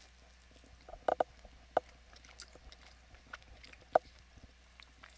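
Chewing a mouthful of soft bread, heard as scattered short mouth clicks and smacks, a double one about a second in and a sharper one near the end.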